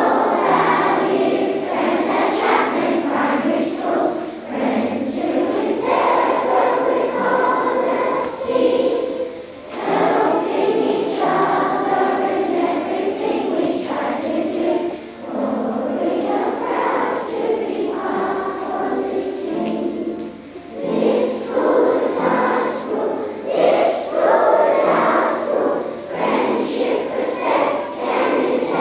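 A choir of young children singing their school song together, in phrases broken by short pauses for breath about every five seconds.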